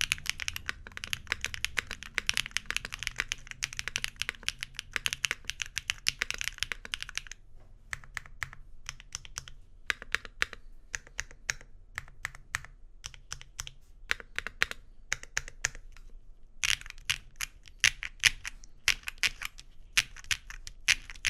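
Typing on a mechanical keyboard in a gummy O-ring mount. It opens with fast, dense keystrokes, slows to scattered keypresses with short pauses from about seven seconds in, and picks up to fast typing again near the end.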